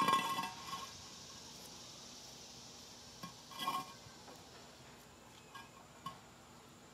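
A concrete block knocking against a steel mower handle as it is set in place, each knock giving a brief metallic clink. The loudest knock comes right at the start, a smaller one just past halfway, then a couple of faint taps.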